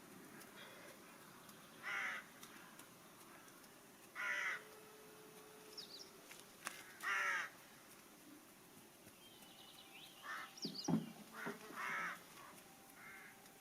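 A crow cawing repeatedly, single caws a few seconds apart and then several in quick succession near the end. A few thin high chirps and a short knock come in among them.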